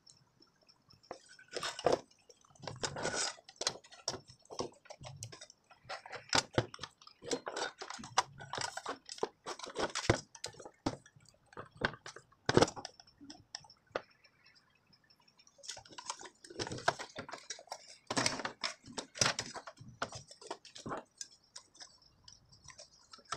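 Irregular clicks, rattles and scrapes of hands working inside an opened audio amplifier, unplugging wire connectors and freeing the front-panel control board from the metal chassis, with a short pause a little past the middle.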